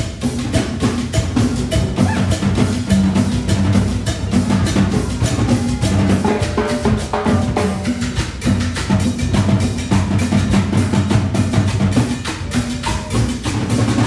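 The Latin percussion section of a concert wind band plays a rhythm passage. Congas, a scraped wooden guacharaca and timbales make a fast, even beat over a low, steady bass line.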